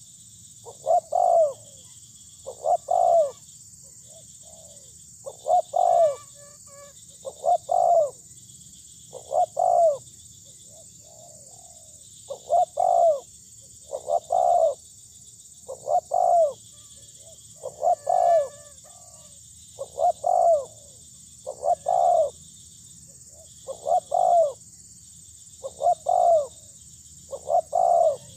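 Spotted dove singing: a phrase of two or three soft coo notes, repeated about every one and a half to two seconds. This is the 'lambung kuk' song style used as a lure for other spotted doves. A faint, steady, high-pitched buzz runs underneath.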